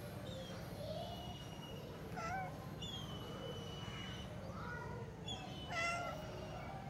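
Several short animal calls, the loudest near the end, and a long, even, high whistle-like call in the middle, over a steady low hum.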